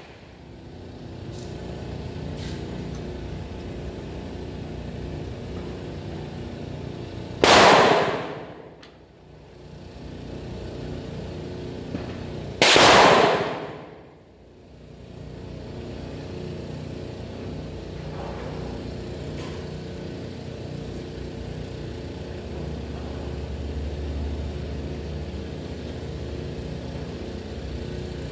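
Two loud gunshots about five seconds apart, each followed by a long fading tail, over a steady background hum.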